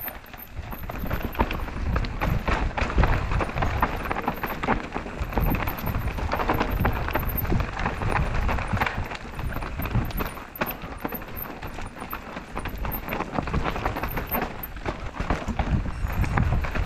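Hardtail mountain bike descending a rocky trail: tyres crunching over loose stones and a rapid, irregular clatter of knocks and rattles from the bike, over a low rumble of wind on the microphone.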